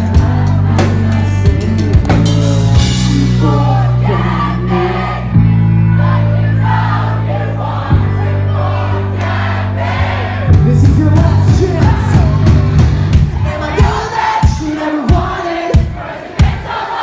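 Pop-punk band playing live with singing: loud sustained guitar and bass chords, then fast drumming from about ten seconds in, ending in a string of separate full-band hits near the end.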